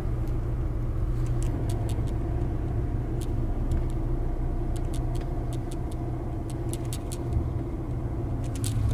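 Cabin noise of a Volvo XC60 being driven: a steady low rumble of engine and road noise, with scattered light clicks over it.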